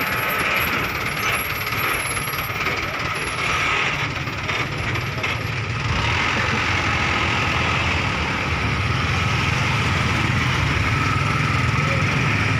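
Engine of a light cargo truck running as it drives slowly past and pulls away, with the low engine sound growing louder and steadier from about halfway. Motorcycle engines pass near the end.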